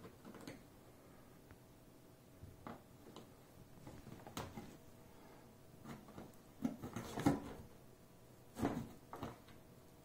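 Two cats scuffling at a cardboard box: irregular soft thumps and scrapes of paws batting against the cardboard, with the loudest flurry about seven seconds in.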